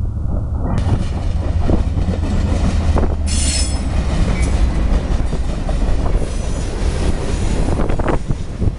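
CSX freight train rolling past with a deep, steady rumble and wheels clicking over the rail joints, and a brief high-pitched wheel squeal about three seconds in.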